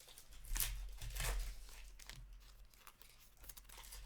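Trading cards being handled, with a few short rustling, crinkling swishes as cards slide and the pack wrapper is moved.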